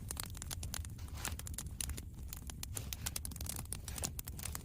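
Wood campfire crackling, with dense irregular pops and snaps over a low steady rumble.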